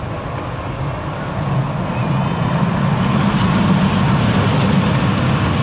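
Small family roller coaster train with ladybird-style cars rolling along its steel track: a steady low rolling noise that grows louder over the first few seconds as the train comes past.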